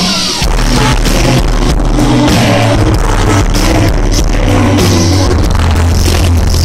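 Live indie-rock band playing in a concert hall: drums keeping a steady beat over a heavy bass line. The booming low end overloads the recording device.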